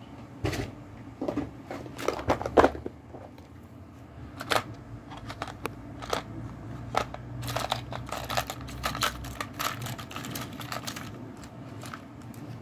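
Handling a clear plastic storage box and the small items in it on a desk: irregular clicks, knocks and rattles, in two busy clusters.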